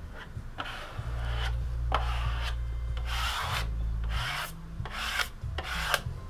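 A squeegee dragged in repeated strokes over a wet, freshly laid clear adhesive grip pad, pushing the soapy water out from underneath. It makes a rubbing scrape about twice a second over a low steady hum.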